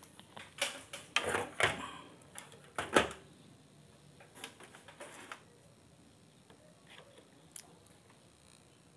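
Handling clatter of an analog multimeter and its test leads being picked up and set down on a TV power-supply circuit board: a few sharp clicks and knocks in the first three seconds, the loudest about three seconds in, then a few faint ticks.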